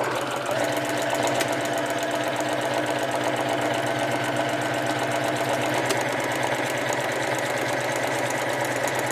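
Necchi C35 domestic sewing machine starting up suddenly and running at a steady speed, its needle moving in a rapid, even rhythm as it stitches a one-step buttonhole.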